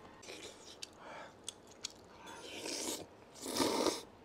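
A man chewing and slurping noodles, with a few faint short clicks early on; two longer slurps follow, the second and loudest about three and a half seconds in.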